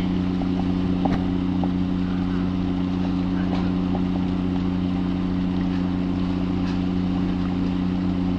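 Fishing boat's engine running steadily, a low even hum that does not change, with a light knock about a second in.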